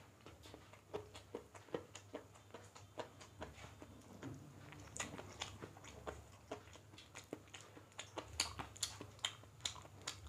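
Eating by hand: chewing and wet mouth smacks on chicken curry and rice, an irregular run of short clicks that grows busier and louder in the second half.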